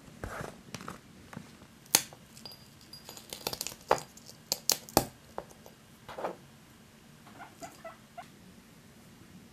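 Dry timothy hay cookies being snapped and crumbled by hand, a run of sharp cracks and clicks as pieces break and drop into a small dish, loudest in the middle, with lighter crumbling ticks near the end.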